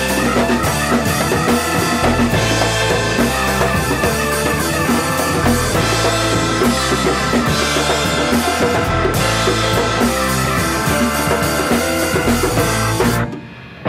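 Live rock band playing: drum kit, five-string electric bass, electric guitar and keyboards all together. Near the end the band stops dead for about half a second, a short break in the music, then comes back in.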